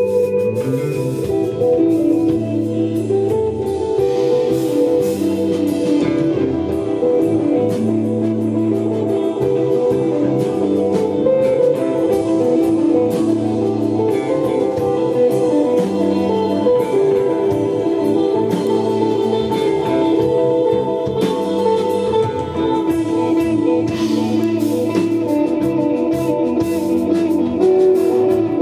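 Desert rock band playing live: sustained, laid-back electric guitar lines over a recurring bass figure, with drums and cymbal hits.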